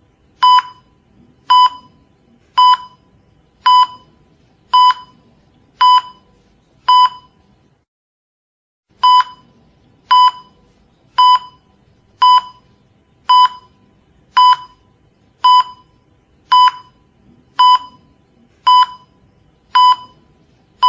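Hospital patient monitor beeping with the heartbeat: one short, high electronic beep about every second, steady and even. The beeps and the background drop out to silence for a moment about eight seconds in, then resume.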